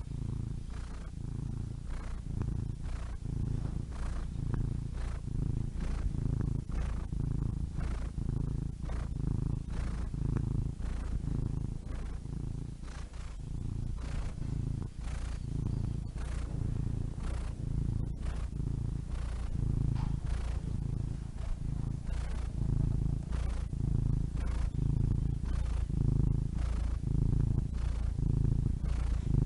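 Domestic cat purring close up, a low continuous rumble that swells and fades in a steady rhythm.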